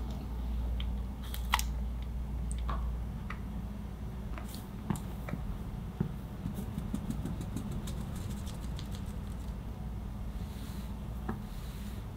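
A few sharp clicks of utensils against a glass bowl, then a fine mesh sieve being shaken to sift flour over cake batter, a quick patter of light ticks for a few seconds.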